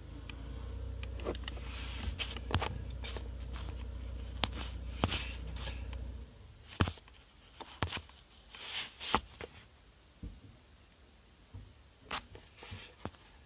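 Low steady rumble in a car cabin that cuts off suddenly about six seconds in, followed by a few scattered small clicks and rustles.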